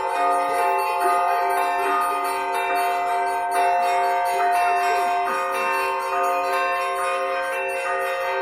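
Russian Orthodox church bells ringing: several bells of different pitch are struck in quick succession, and their tones overlap and ring on.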